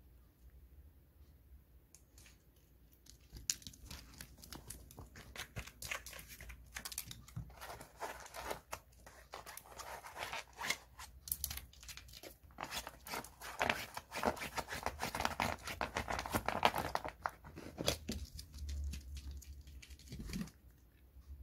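A small dog pawing and scrabbling at the edge of a bed, its claws scratching and the fabric rustling close to the microphone. The dense scratchy crackling starts about three seconds in and thins out near the end.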